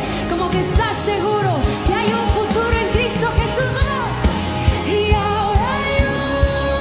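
Contemporary Christian worship music: a sung melody over a band with a steady drum beat.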